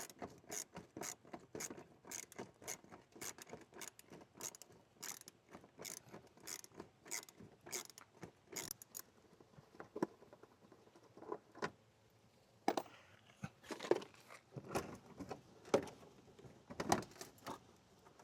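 Hand tools and car parts clicking and knocking during work on a car's headlight bulb under the hood: an even clicking about three times a second for the first half, then a pause and scattered sharper knocks and clicks.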